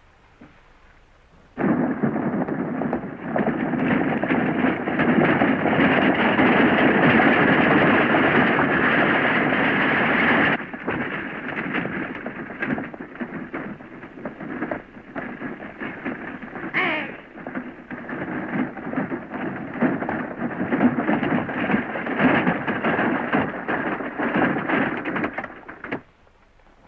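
Galloping horses and a horse-drawn wagon rattling along: a dense, steady clatter that starts suddenly about a second and a half in, eases a little about ten seconds in, and stops near the end. A brief high cry cuts through it about two-thirds of the way through.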